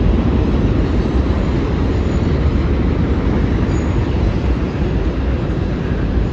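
Freight train cars rolling across a railway bridge: a steady, even rumble of wheels on rail.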